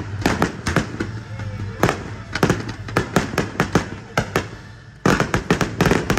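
Aerial fireworks going off in a rapid string of sharp bangs and crackles, thickest in a dense burst about five seconds in.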